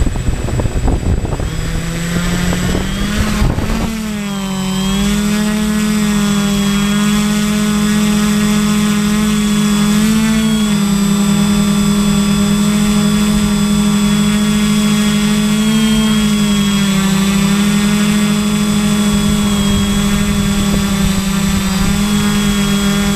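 A small drone's electric motors and propellers spin up and lift off, making a loud steady buzz. The pitch rises over the first few seconds, with gusty rumbling underneath at first. Then it holds steady through the climb, with only slight shifts in pitch.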